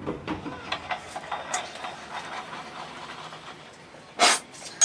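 Clicks and knocks of wood and metal as a screw-type apple cider press is worked by hand, quickest in the first second and a half. About four seconds in comes a short, louder clatter, the loudest sound here.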